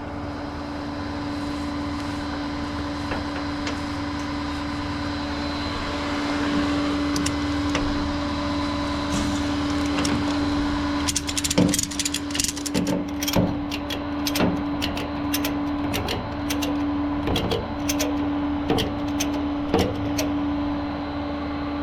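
Tow truck driving, heard from inside the cab: a steady engine drone with a constant hum. From about halfway, irregular clicks and rattles join it.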